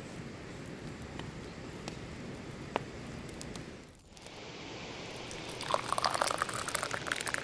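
Tea poured from a small pan into a cup, a splashing trickle that starts about six seconds in and is the loudest sound. Before it, a few faint crackles from the wood fire under the boiling tea, over a low steady hiss.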